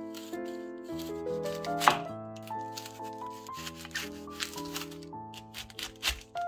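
A chef's knife cutting through a raw head of white cabbage on a bamboo cutting board: a series of crunching cuts, the loudest about two seconds in. Background piano music plays throughout.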